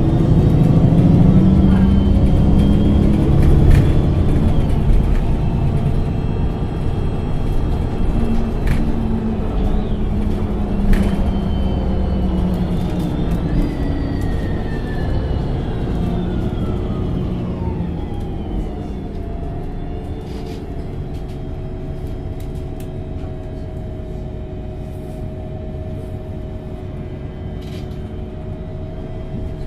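MAN NG273 LPG articulated city bus running. The engine's rumble eases as the bus slows, a drivetrain whine falls in pitch about halfway through, and it settles into steadier, quieter running with a steady whine.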